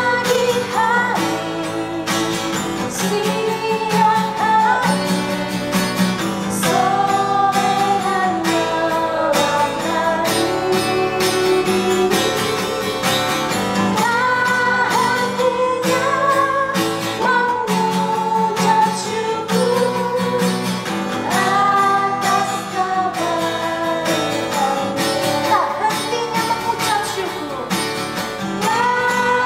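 Voices singing an Indonesian praise song to a strummed acoustic guitar.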